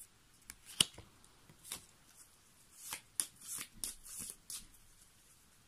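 Fortune-telling cards being handled: a scatter of soft flicks and rustles of card stock, the sharpest about a second in.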